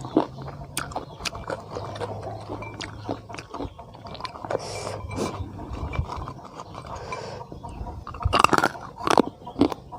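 Eating sounds: chewing with scattered clinks of cutlery and dishes, and a louder run of bursts near the end.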